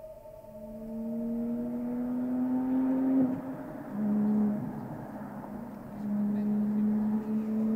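A motor vehicle's engine: its pitch rises steadily for about three seconds, breaks off, and then holds steadier and lower twice.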